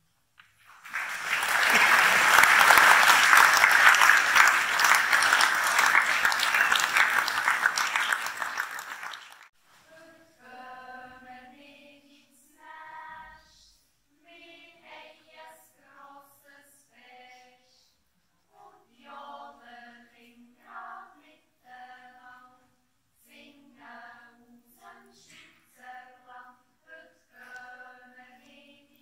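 An audience applauds for about eight seconds, then a children's yodel choir begins singing unaccompanied, in short phrases with brief pauses between them. The singing is much quieter than the applause.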